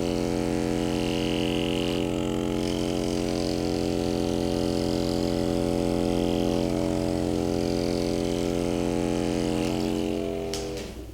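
A small electric motor humming at a steady, unchanging pitch, then stopping shortly before the end.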